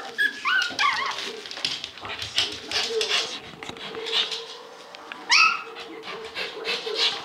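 Four-and-a-half-week-old Shih Tzu puppies whimpering and yipping: a quick run of short, high squeaky yips in the first second and one more yip a little after five seconds, with small clicks and scuffles between as they move about.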